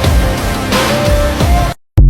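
Background music with a heavy, driving beat that cuts off abruptly near the end.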